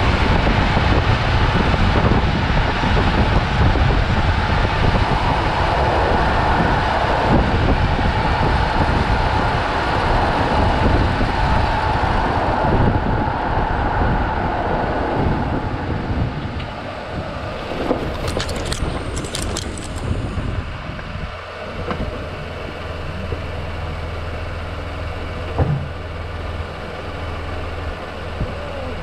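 Wind rushing over the microphone and road rumble from a camera travelling at about 75 km/h down an asphalt road, loud and steady, easing off after about 15 seconds as it slows to a stop. A few brief high scrapes come a few seconds later, and a single knock near the end.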